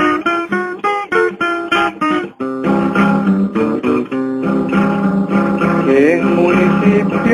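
Instrumental break in a song, led by plucked guitar. It opens with a run of quick separate notes, breaks off briefly about two and a half seconds in, then goes on with longer held and sliding notes.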